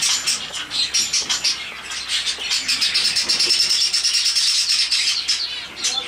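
Many small aviary birds chirping and chattering together in a dense, continuous chorus of rapid high-pitched calls, a little louder and busier in the second half.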